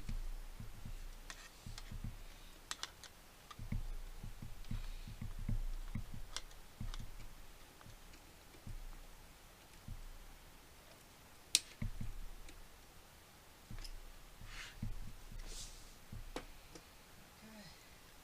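Scattered small clicks and light knocks of a screw being put into a computer case by hand and screwdriver, with one sharper click about two-thirds of the way in.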